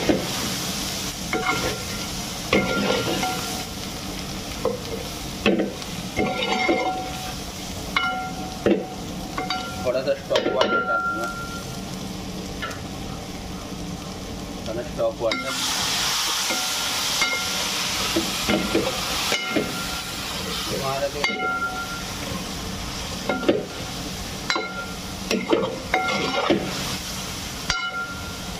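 Chicken pieces frying in oil with ground spices in a large aluminium handi, sizzling steadily, while a steel ladle stirs and scrapes against the pot with repeated metallic clinks, some ringing briefly. About halfway through, the sizzle grows louder for several seconds.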